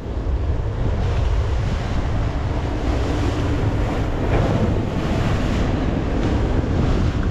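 Strong wind buffeting the microphone over the steady rush of surf against the rocks, the wind rising sharply at the start and then staying strong.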